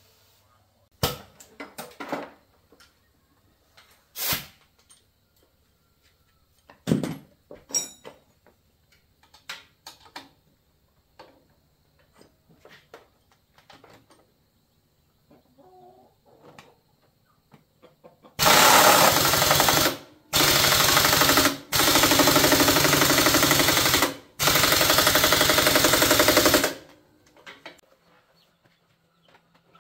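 Impact wrench hammering on a motorcycle's rear axle nut in four loud bursts over about eight seconds, starting about eighteen seconds in. Before that come scattered light clicks and knocks of hand tools.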